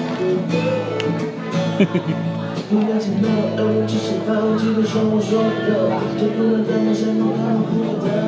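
Music: acoustic guitar playing, with a singing voice.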